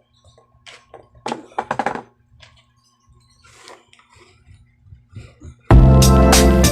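Faint scattered room sounds with a brief voice-like sound, then loud music starts suddenly about a second before the end.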